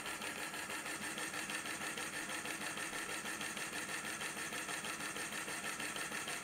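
Lego Power Functions L motor driving a small pneumatic compressor, running steadily with a fast, even pumping pulse. It is building air pressure for the model's pneumatic hood lift.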